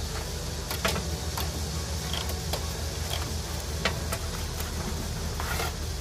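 Light clicks and taps from cables and plastic parts being handled inside a desktop PC case, over a steady low mechanical hum.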